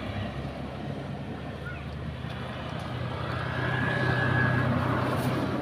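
An engine running out of sight, a steady low hum that grows louder to a peak about four seconds in, with a thin whine at its loudest, then eases off.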